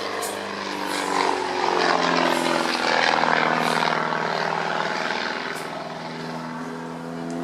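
Propeller aircraft engine flying past. Its note drops in pitch about a second or two in, and it is loudest a few seconds in.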